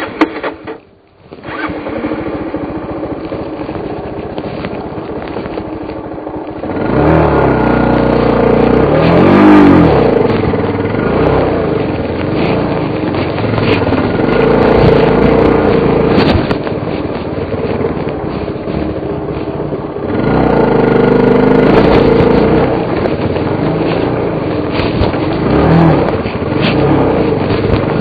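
Suzuki DR350's single-cylinder four-stroke engine, heard close up, pulling the bike along a rocky trail. It dips briefly about a second in and runs at low throttle for a few seconds, then opens up from about seven seconds in, its revs rising and falling as the throttle is worked, with a second surge about twenty seconds in.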